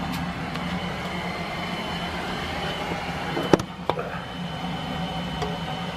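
Steady hum of a running electric fan, with two sharp clicks a little past the middle.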